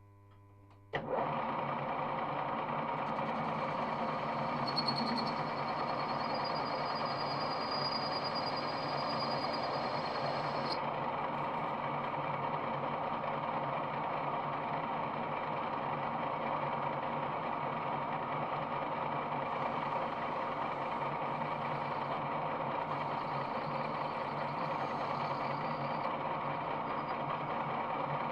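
Metal-turning lathe (1E95) switched on about a second in and then running steadily, motor and gearing humming with a high whine over part of the run.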